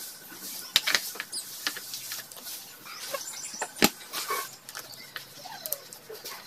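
Sharp metal clicks and taps as a chrome cover and its bolts are fitted onto a Lifan 150cc engine: two about a second in and a louder one near four seconds in. Faint animal whines sound now and then.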